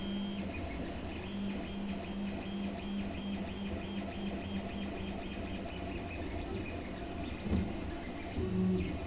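Creality Ender 3 3D printer at work printing PLA: its stepper motors sing in short pitched notes that switch on and off several times a second as the print head makes quick back-and-forth moves, over a steady mechanical whir.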